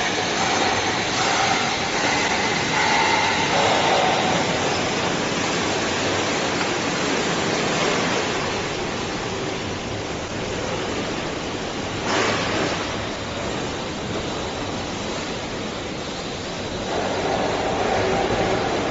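Steady rushing noise with no clear pitch, with one brief louder swish about twelve seconds in.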